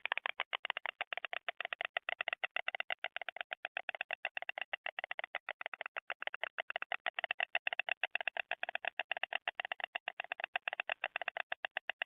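A pair of adult white storks bill-clattering: a rapid, even rattle of wooden-sounding clacks, about ten a second, kept up without a break. This clattering is the storks' greeting and pair-bonding display at the nest.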